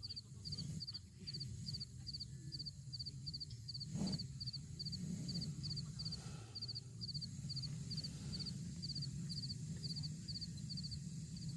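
An insect chirping steadily at one high pitch, short chirps of two or three pulses about twice a second, over a low steady rumble.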